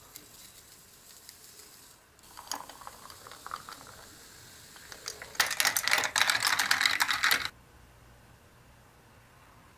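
Powdered drink mix shaken from a stick packet into a glass, then liquid poured in over it. The drink fizzes and crackles, loudest for about two seconds near the middle, then cuts off suddenly.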